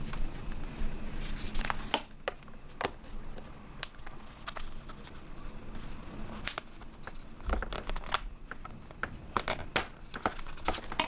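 Two-piece Spigen Neo Hybrid phone case being handled and pried apart: irregular sharp plastic clicks and short scrapes as the rigid bumper frame is worked off the soft inner case.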